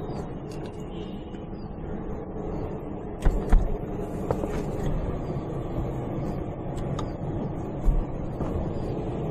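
Steady hum of a desiccant dehumidifier unit running, with its blowers moving air. Sharp thumps cut in: two close together about three seconds in and one near the end, as the control panel doors are shut.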